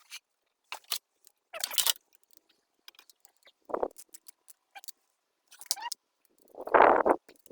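Scattered clicks and scrapes of tools and metal engine parts being handled while an oil cooler housing is fitted, with a few longer rustling scrapes, the loudest near the end.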